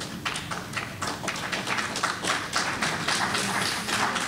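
Scattered clapping from a small audience, irregular claps several a second.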